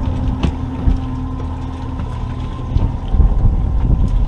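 Boat motor running steadily at trolling speed, with wind buffeting the microphone and gusting louder in the second half. A single sharp knock about half a second in.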